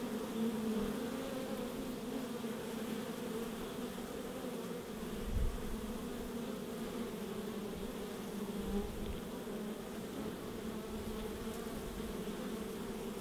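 Honeybees buzzing at a hive entrance: a steady hum of many wings.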